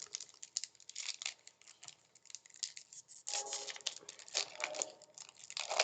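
Foil trading-card pack wrapper being torn open and crinkled: a run of small crackles and rips.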